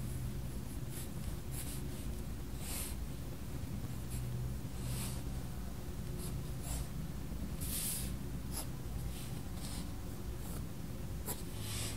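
Faber-Castell Polychromos coloured pencil scratching across sketchbook paper in short, irregular strokes, over a steady low hum.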